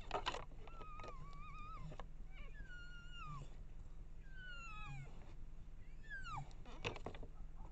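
A pack of coyotes howling and yipping together: several voices at once, wavering howls overlapped by short, falling yips.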